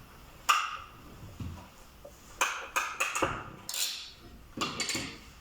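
A string of sharp clicks and clacks of small hard parts and hand tools being handled: about eight separate knocks, bunched from about two seconds in.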